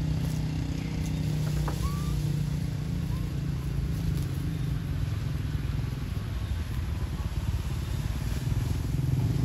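A motor engine running steadily with a low hum, with a few faint short chirps about two seconds in.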